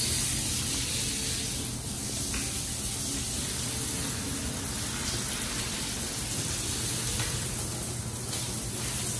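Steady hiss of running and spraying water as soapy water is pushed across a floor with a squeegee toward a floor drain, with a steady low hum underneath.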